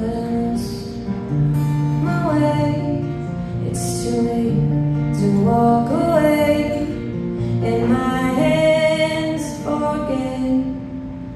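A woman singing live with her own acoustic guitar accompaniment, her voice holding long notes and sliding between them over the guitar.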